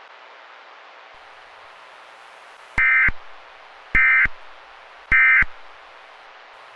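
Emergency Alert System end-of-message data tones: three short warbling bursts of the SAME digital signal, each about a third of a second long and about a second apart, marking the end of the tornado warning. A steady radio-static hiss runs underneath.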